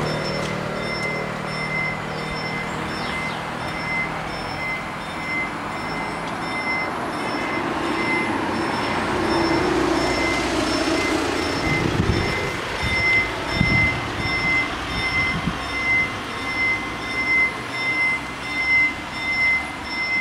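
Level-crossing warning bells of a TM 2000 crossing, ringing as a steady run of short repeated high tones while the barriers come down: the crossing closing for an approaching train. A car engine fades away at the start, and in the second half a low thumping, about one and a half beats a second, grows louder.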